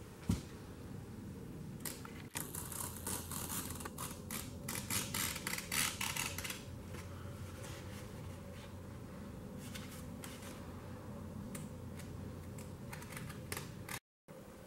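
Scissors cutting through a yurt's foil-faced insulation and fabric side cover: a quick run of snips from about two to seven seconds in, then slower, quieter cutting.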